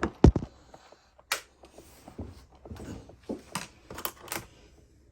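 Sharp clicks and taps of small RC truck parts and tools being handled during disassembly, with a loud knock about a quarter second in and scattered clicks after it.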